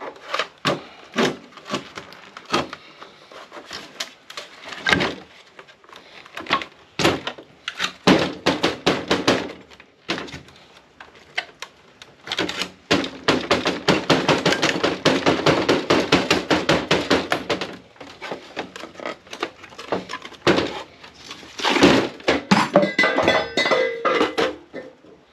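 Knocks, clatter and scraping of the hard plastic case and metal parts of an APC backup UPS being pried and worked apart to free its battery pack, with a few seconds of fast rasping a little past halfway and more clatter near the end.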